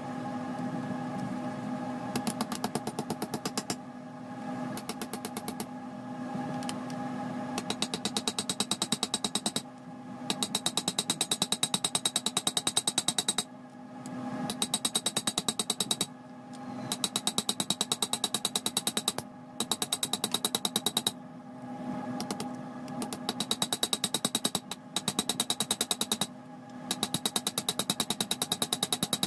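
Small hammer tapping rapidly on the pins of a knife's fiber handle to peen them over, several light metallic strikes a second in runs of a few seconds with short pauses between.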